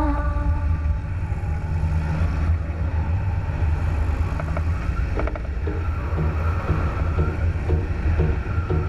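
Extra 300 aerobatic plane's piston engine running steadily, mixed with wind rush over an externally mounted camera microphone.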